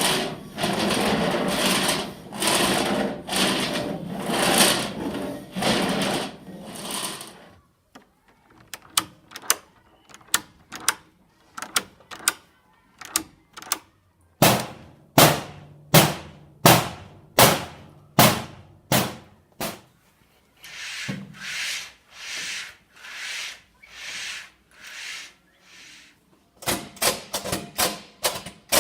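A series of foley sound effects made with everyday objects. First come several seconds of noisy bursts, then scattered clicks, then loud, regular knocks about two a second. After that come softer noisy strokes about one a second, and near the end fast tapping.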